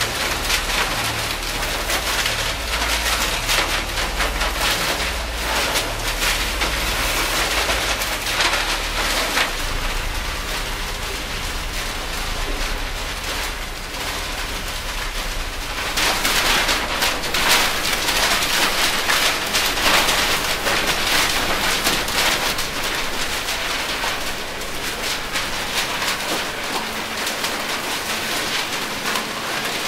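Dense rustling and crackling of many paper sheets being thrown, flapping and landing, a thick continuous patter. A low throbbing runs underneath for about the first half, then stops, and the rustle grows a little louder.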